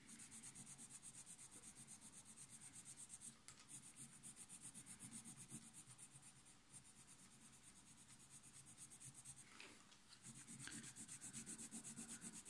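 Faint scratching of a coloured pencil hatching on sketchbook paper in quick short strokes, about four a second, layering colour. The strokes ease off in the middle and pick up again near the end.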